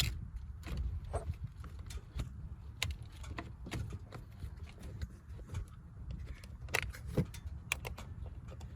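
Light metallic clicks and clinks of a 10 mm wrench worked by hand on a car battery's terminal clamp bolt, loosening it. The clicks come irregularly, a few every second or two.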